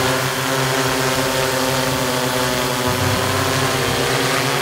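Yuneec Typhoon Q500 4K quadcopter flying close by: the steady buzzing hum of its four motors and propellers, a stack of tones that wavers slightly in pitch as the aircraft manoeuvres.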